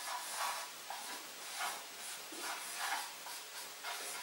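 Marker pen rubbing across a whiteboard in a quick series of short strokes as an equation is written out.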